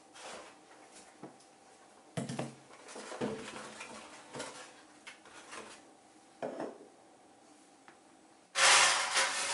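Baking ingredients, a plastic margarine tub and eggs, set down one at a time on a kitchen countertop, giving a few light knocks and rustles. Near the end a much louder clatter of metal baking pans starts suddenly.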